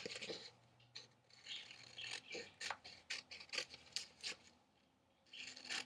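Scissors snipping through wallpaper in a quick run of short cuts, with the paper rustling in the hands. The snips stop for a moment near the end, then start again.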